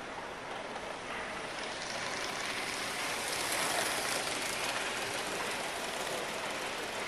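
Live-steam model locomotive with its train running past close by on the track. A rushing, hissing noise builds to its loudest about three to four seconds in, then eases.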